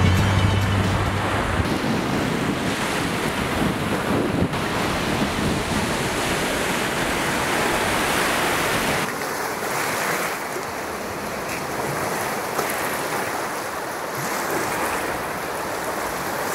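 Ocean surf washing on a shore with wind, a steady rushing noise that gets a little lighter about halfway through.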